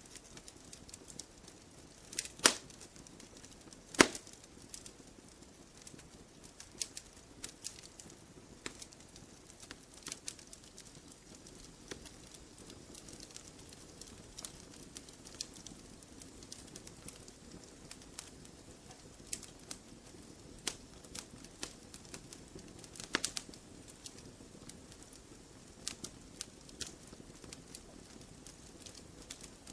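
Campfire logs burning and crackling, with irregular small snaps over a soft hiss. A few sharp, louder pops stand out, two of them a couple of seconds apart near the start and a cluster past the middle.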